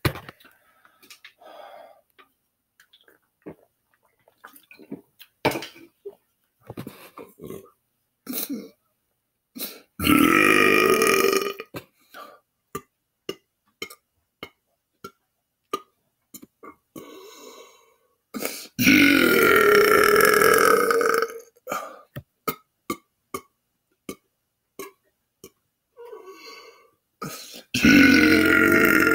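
A man belching on purpose: three long belches about eight to nine seconds apart, each lasting about two seconds, the last starting near the end. Faint short clicks come between them.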